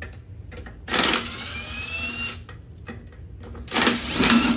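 Cordless impact wrench working on a mower wheel's lug nuts in bursts, its motor whine rising as it spins up, with a louder stretch of hammering near the end; it is working slowly today.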